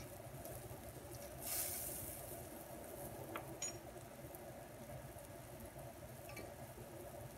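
Golden chanterelle mushroom stir-fry simmering and sizzling in a wok, oil and a little water bubbling steadily. A louder burst of hiss comes about one and a half seconds in, and a few light clicks follow in the middle and near the end.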